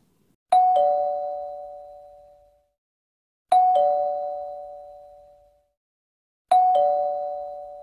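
Two-note ding-dong doorbell chime rung three times, about three seconds apart; each ring drops from a higher note to a lower one and fades out over about two seconds.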